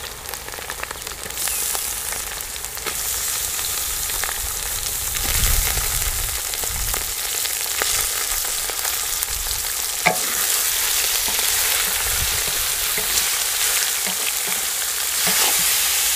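Chicken mince sizzling as it fries in hot oil with browned onions in an aluminium pot, the hiss swelling about a second in. A few sharp knocks come from a wooden spoon stirring.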